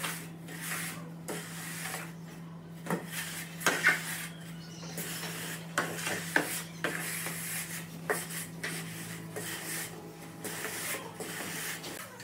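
A long metal straightedge dragged and worked back and forth over a wet sand-and-cement mortar bed to level a floor screed: an irregular gritty scraping with occasional sharp knocks, over a steady low hum.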